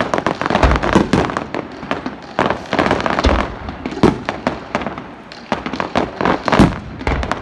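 Fireworks display: a dense, irregular run of bangs and crackling bursts with deep thuds of shells going off.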